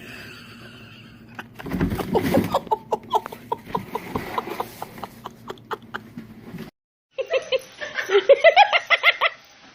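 Laughter in rapid repeated bursts, breaking off suddenly about seven seconds in, then another run of quick laughter that climbs in pitch.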